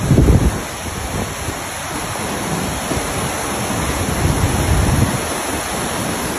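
Swollen Broad River floodwater rushing, a loud steady roar of water, with wind buffeting the microphone near the start.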